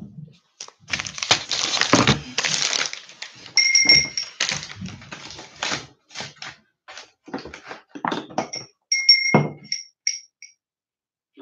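Rustling, knocking and thuds of things being handled and moved around, in uneven bursts, with a few short high beeps around four seconds in and again near the end.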